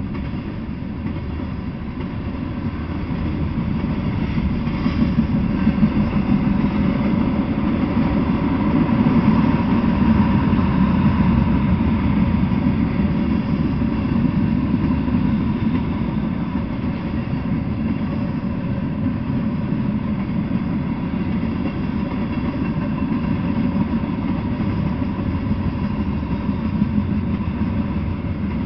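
Freight train of covered hopper cars and tank cars rolling past, wheels running on the rails in a steady rumble that swells a little about a third of the way through.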